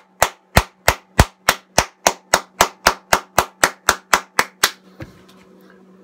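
One person clapping their hands: a steady run of sharp claps, about three a second and getting slightly faster, that stops about five seconds in.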